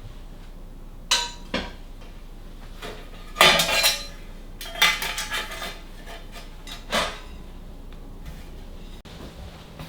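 Tableware being handled: about half a dozen separate clinks and clatters of dishes and cutlery, the first ringing briefly at a clear pitch.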